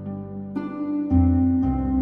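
Slow, soft instrumental music: held notes, with new notes struck about every half second and deep bass notes coming in about a second in.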